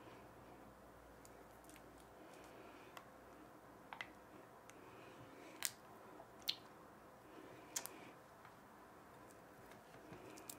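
Faint squishing of thick glue being stirred by hand with a silicone spatula in a glass bowl, mixing food colouring into white glue. About half a dozen sharp clicks break it, the loudest near the middle.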